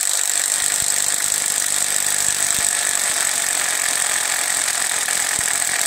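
Cordless drill running at a steady speed for several seconds, turning a screw extractor in a sheared mounting bolt. The extractor is failing to grip the bolt. The drill cuts off sharply just after the end.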